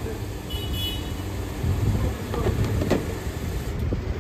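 Traffic and vehicle engines running on a street beside a petrol station forecourt, a steady low rumble with a few sharp clicks and knocks.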